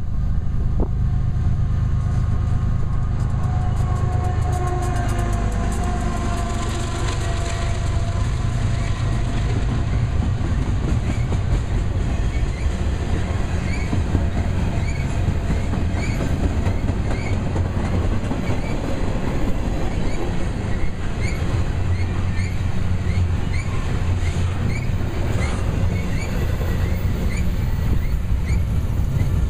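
BNSF double-stack intermodal train passing close by: the GE ES44C4 diesel lead locomotive's engine goes past in the first several seconds, then the loaded container well cars keep up a heavy steady rumble. Their wheels click over the rail joints about once a second.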